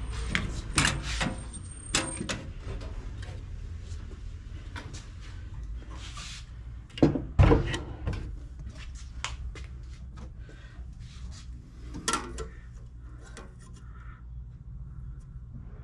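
Clicks, knocks and clatter of a steel mini toolbox being handled, its drawers on ball-bearing slides pulled open and pushed shut, with two louder knocks about seven seconds in and one near twelve seconds.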